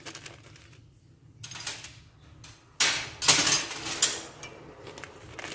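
A plastic bag of curry powder rustling and crinkling as it is handled and tipped over a stainless steel mixing bowl of duck pieces, with sharp knocks against the bowl. The loudest burst comes about three seconds in and lasts about a second and a half.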